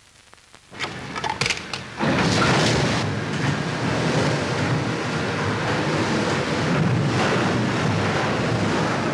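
Automatic car wash starting up: a few clunks in the first two seconds, then a loud, steady rush of water spray and rotating brushes scrubbing over the car from about two seconds in.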